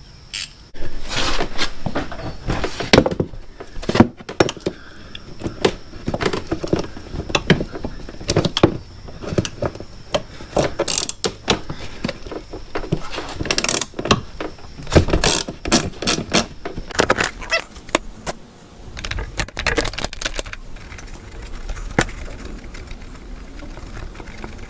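Steel hand wrench clinking and clanking against the bolts and metal of a motorcycle rear brake caliper as it is fitted and worked. Many short, irregular metallic clicks and knocks, some louder clanks among them.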